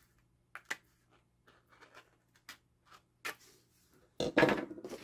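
Faint, scattered clicks and scratches of a craft knife blade cutting through cardstock on a cutting mat, then a louder rustle as the paper sheet is handled about four seconds in.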